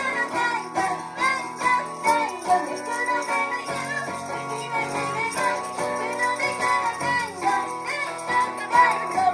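Christmas song medley played live on ukulele, a moving melody over held chords.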